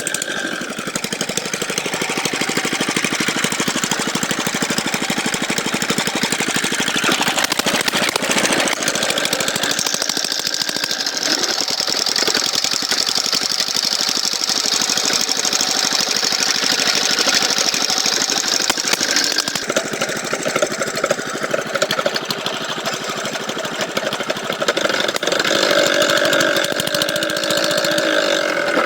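Engine-driven water-well boring machine running steadily, a loud continuous mechanical clatter.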